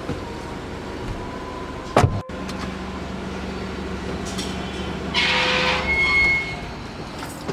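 A car door shuts with a sharp thump about two seconds in. Steady street noise with a low hum follows, and a louder rush of noise rises from about five seconds and fades by six and a half.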